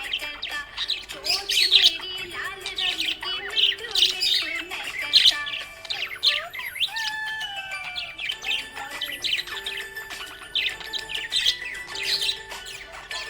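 Budgies chirping and warbling in rapid, busy bursts, over a music track with steady held notes.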